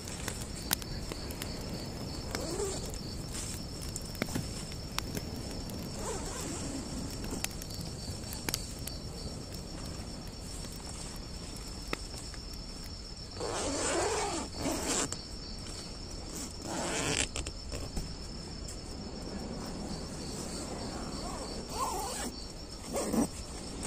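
Crickets chirping in a steady, high, pulsing trill. Over it come bursts of rustling from the nylon tent fabric being handled, about halfway through and again near the end.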